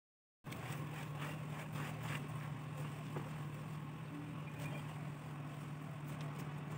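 A steady low motor hum, with faint scratches and ticks of potting soil being handled and pressed into a clay pot by hand. The sound starts after a brief dropout.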